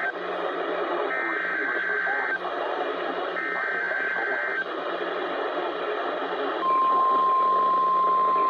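NOAA Weather Radio heard through a receiver with a steady static hiss. There are two short bursts of warbling SAME digital header data, each a little over a second long, right after a first one ends. About two seconds after the last burst, the steady 1050 Hz warning alarm tone of the weekly test comes on and holds.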